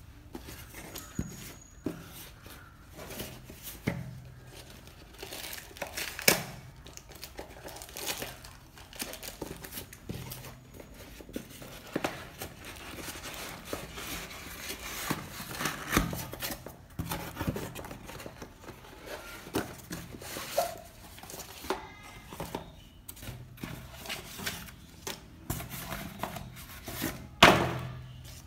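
Cardboard mailer being opened by hand: the taped flap torn open, cardboard and paper rustling and crinkling, with scattered knocks and taps, the loudest near the end.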